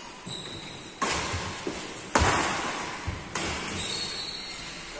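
Badminton rackets striking a shuttlecock in a rally, three sharp cracks about a second apart, the middle one loudest, each echoing in a large hall. A brief high squeak comes near the end.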